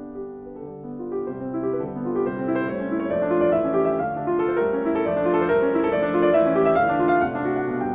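Background piano music, a steady flow of short notes that grows louder over the first few seconds.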